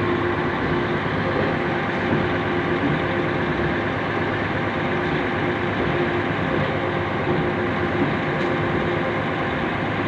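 A concrete mixer truck's diesel engine idling, a steady drone with a constant hum.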